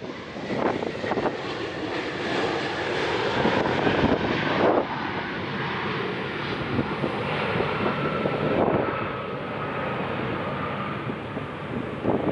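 Airliner engines running close by as the aircraft passes, a loud rushing noise with a faint whine that slowly falls in pitch through the middle.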